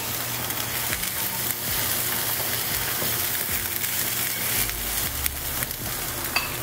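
Leftover chicken and mushrooms sizzling in a hot skillet, with a utensil stirring and scraping through them in short clicks.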